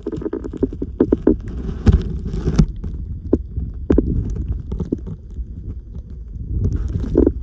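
Audio from a camera held underwater in shallow seawater: a muffled low rumble of moving water with irregular sharp clicks and knocks.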